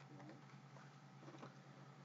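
Near silence: faint steady electrical hum, with a few very faint ticks.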